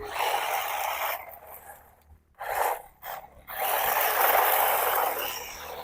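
Gantry Pro 4WD brushless RC off-road car driving in short throttle bursts at low speed, its tyres scrabbling over gravel. It makes a rasping hiss in four bursts, the last and longest lasting nearly two seconds.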